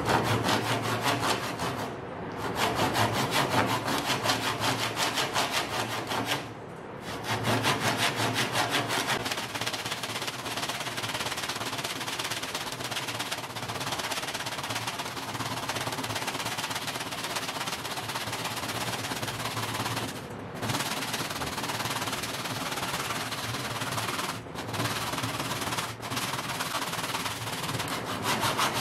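Hand saw cutting through a wooden board in steady back-and-forth strokes, the teeth rasping fast, with the sawing stopping briefly a few times.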